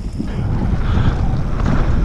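Wind rushing over an action camera's microphone on a moving mountain bike, mixed with the low rumble of knobby tyres rolling over a loose dirt trail. It swells in the first half second and then holds steady.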